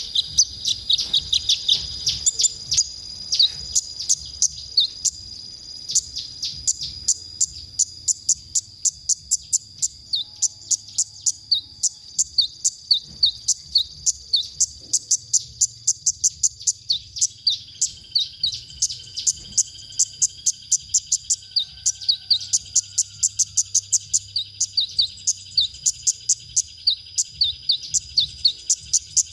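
Male kolibri ninja (purple-throated sunbird) singing: a long run of rapid, high-pitched chirps, about three a second, over a steady high-pitched buzz.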